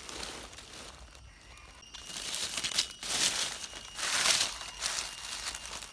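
Dry fallen leaves crackling and rustling as leaf litter is disturbed, in a few uneven bursts that get louder about two seconds in.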